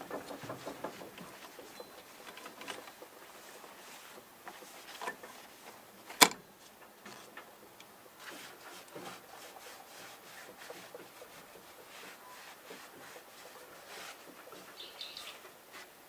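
Gloved hands rubbing and wiping the metal head of an old treadle sewing machine with a cloth: soft rustling with small taps and scrapes, and one sharp knock about six seconds in. A bird chirps briefly near the end.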